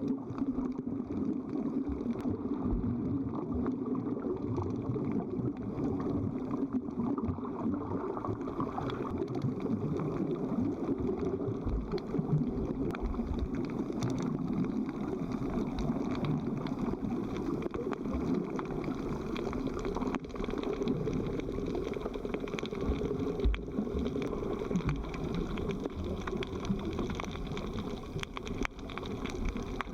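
Steady, muffled churning and gurgling of seawater, as heard by a camera held underwater while snorkelling, with occasional low thumps.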